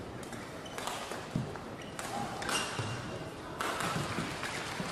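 Badminton rally: sharp knocks of rackets striking the shuttlecock and players' shoes landing on the court, a handful of separate hits a second or so apart over a steady murmur of the hall.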